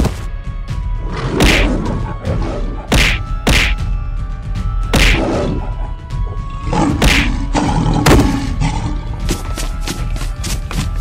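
Dramatic background music under repeated fight impact sound effects, thuds and whacks at irregular spacing, coming in quicker succession near the end.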